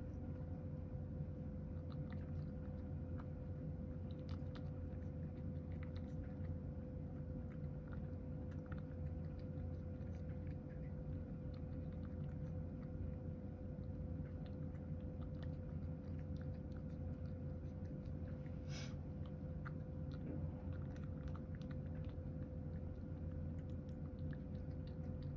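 A domestic cat eating chopped carrot mixed with bonito flakes from a ceramic bowl: steady chewing and crunching with many small clicks, over a constant low hum.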